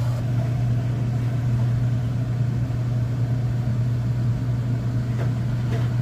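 Whirlpool Duet front-load washing machine running on a test fill after its clogged drain pump was cleared: a steady low hum with an even wash of water and machine noise.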